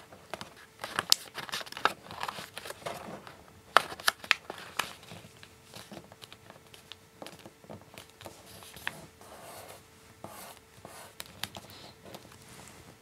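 Origami paper rustling and crinkling in the hands as a flap is folded down and the creases are pressed flat, with irregular soft clicks and crackles.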